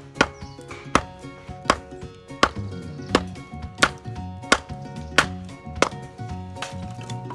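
Wood being chopped in steady strokes, nine in all, about three every two seconds and speeding up slightly, stopping about six seconds in, over background music.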